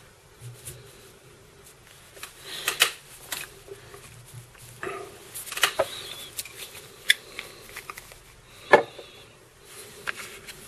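Handling noises at a fly-tying bench: scattered clicks, taps and rustling, the loudest a sharp knock about nine seconds in.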